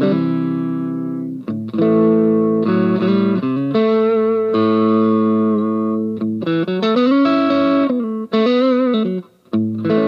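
Tokai SilverStar SS-36 Strat-style electric guitar played amplified: chords and single notes are picked and left to ring, with brief stops between phrases. Past the middle, a few notes are bent up and held with vibrato.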